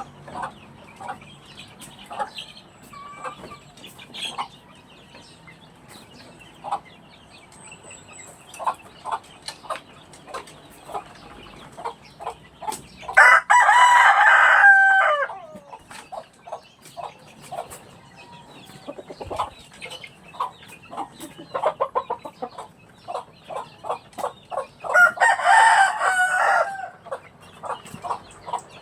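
Backyard chickens clucking throughout, with a rooster crowing twice, about a third of the way in and again near the end; each crow lasts about two seconds.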